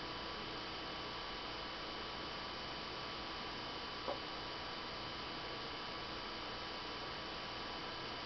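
BenQ W500 LCD projector's cooling fan running steadily, a constant whooshing hum with faint steady whine tones in it. A single brief click about halfway through.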